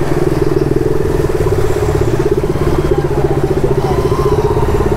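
KTM Duke 200's single-cylinder engine running steadily with a fast, even pulse while the bike rolls slowly through floodwater.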